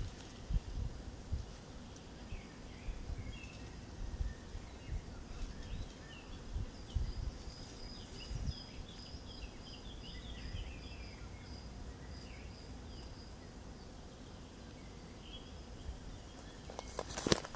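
Outdoor woodland ambience: distant birds chirping, a thin high steady trill partway through, and low rumbles of wind on the microphone. A loud rustle comes near the end.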